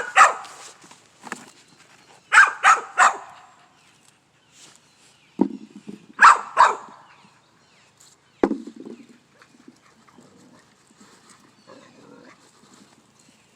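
A dog barking in short sharp barks: one at the start, three in quick succession about two seconds in, and two more about six seconds in. Two dull thuds fall in between.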